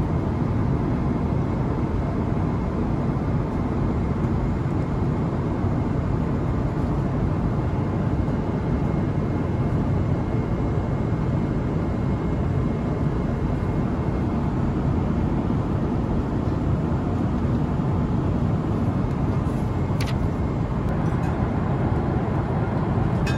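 Steady airliner cabin noise: the even low rush of the engines and airflow heard inside the passenger cabin, with a faint high tone for much of it. A single brief click sounds about twenty seconds in.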